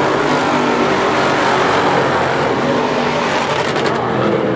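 Several dirt-track modified race car engines running hard as the cars pass the grandstand, a steady loud engine noise without a break.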